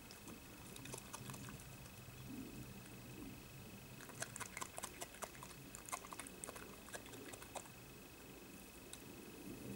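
European badger eating from a plate of food scraps: faint crunching and chewing clicks, a short cluster about a second in and a denser run from about four to seven and a half seconds in.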